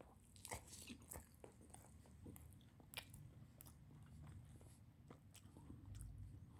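Faint eating sounds of a person biting into and chewing a chicken burger with a juicy chicken patty: scattered small crunches and wet mouth clicks.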